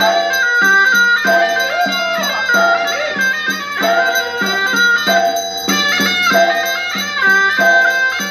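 Chinese traditional temple ritual music: a reedy wind instrument plays a melody of held notes that step up and down, over a steady percussion beat.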